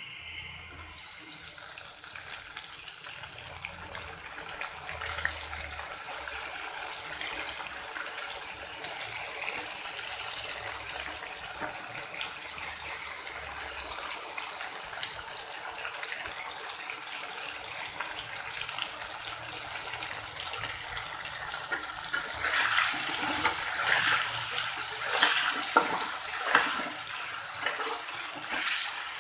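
Paneer pieces and potatoes sizzling as they fry in hot mustard oil in a kadai, a steady crackling sizzle that starts about a second in once the paneer goes in. It gets louder and more crackly in the last few seconds.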